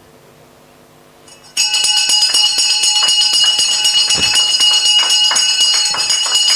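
Ceremonial bell sound effect: a loud, continuous metallic ringing that starts suddenly about a second and a half in and keeps going.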